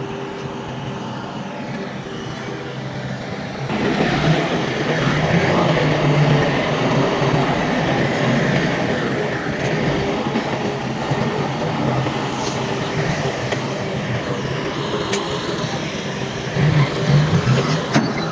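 Heavy diesel earthmoving machinery running. A steady engine hum grows clearly louder and rougher about four seconds in and stays up, with a few sharp knocks later on.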